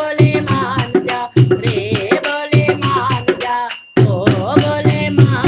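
Instrumental music from a Hindi devotional song: a quick, steady drum beat under a wavering melody line. It breaks off briefly twice.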